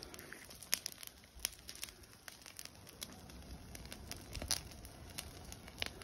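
Smoky bonfire of green garden cuttings crackling, with scattered sharp pops and snaps at irregular intervals.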